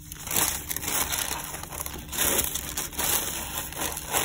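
Rose gold metallic tissue paper crinkling and rustling as gloved hands fold it closed over the contents of a cardboard shipping box, swelling and fading several times.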